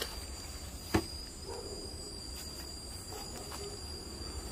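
Asian honeybees humming around an opened hive, over a steady high-pitched insect tone, with one sharp knock about a second in.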